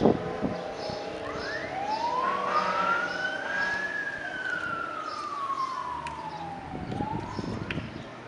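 Emergency-vehicle siren on a slow wail: the pitch rises for about three seconds, falls for about three more, and starts rising again near the end.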